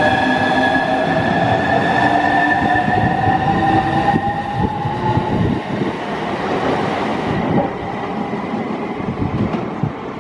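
Southeastern Class 395 high-speed electric multiple unit pulling out of the platform: its traction motor whine rises in pitch as it accelerates over the running noise of the train. After about five seconds the whine fades and the sound slowly dies away.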